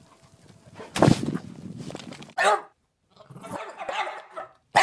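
A dog barking: a loud outburst about a second in, a short bark, then a longer run of barking and yowling, and another sharp bark near the end.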